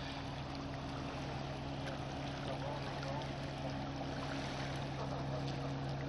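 Steady low mechanical hum, one pitch held throughout, over a faint outdoor wash of noise.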